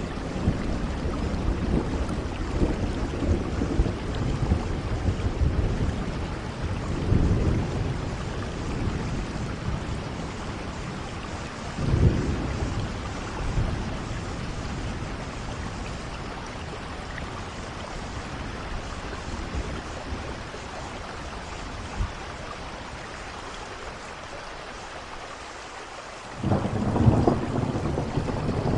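Steady heavy rain hiss with rolls of thunder: rumbles early, a sudden loud one about twelve seconds in, a quieter lull, then a long loud roll starting near the end.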